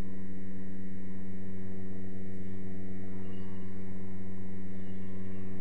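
Steady electrical mains hum with a buzzy stack of overtones.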